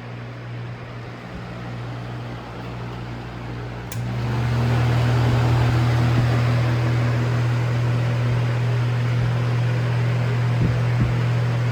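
Lasko Air Flex box fan running with a steady motor hum and air rush. About four seconds in, the speed switch clicks and the motor spins up: the hum rises in pitch and the air rush grows louder as the fan settles at a higher speed.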